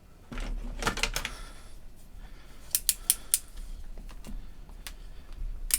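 Small hand tools and cable being handled on a workbench during a cable trim: some rustling, then a quick run of about four sharp clicks near the middle and one more click near the end.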